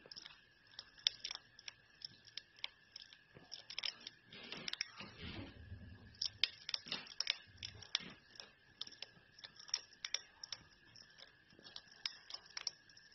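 African pygmy hedgehog crunching its food: many irregular, sharp crunches, with a denser burst of chewing about four to six seconds in.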